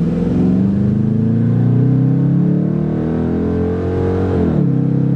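Dodge Charger's Hemi V8 pulling hard under full-throttle acceleration, its note rising steadily, then dropping sharply about four and a half seconds in as the transmission upshifts.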